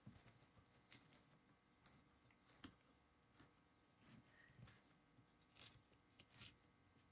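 Faint, irregular clicks and scrapes of a rusty key opener being turned around the rim of an old metal shortening can, tearing and winding up the tin strip.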